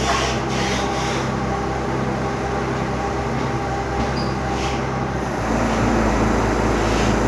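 An engine running steadily. About five seconds in, its low note deepens and grows a little louder.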